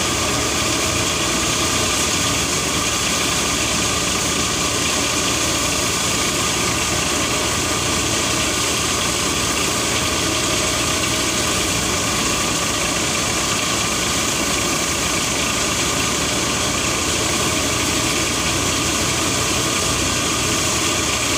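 A tractor-driven thresher running steadily under load: a Massey Ferguson 240's three-cylinder diesel engine turning the threshing drum through its PTO shaft as mustard stalks are fed in. The mix of engine and machine noise is even and unbroken.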